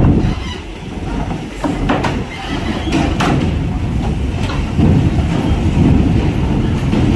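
Heavy multi-axle tronton truck driving off a ferry over the steel loading ramp, its engine rumbling low while its wheels roll across the ramp plates. Several sharp metal clanks come about one and a half to three and a half seconds in as the wheels cross the ramp joints.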